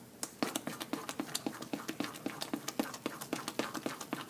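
A spatula stirring thickening semolina halwa in a kadhai, knocking and scraping against the pan in quick even strokes, about six a second. The mixture has nearly cooked down to the stage where it pulls away from the pan's sides.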